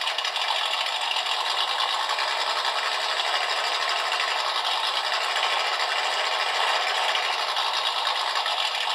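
Simulated V8 engine idling, played by the rock crawler's engine sound module through its small onboard speaker: a steady rapid burble with no bass.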